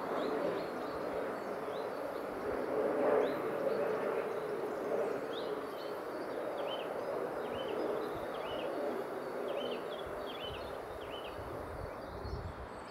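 Single-engine propeller light aircraft passing overhead: a steady engine drone that swells and eases slightly. Through the middle and later part, a small bird chirps over it, a dozen or so short high calls.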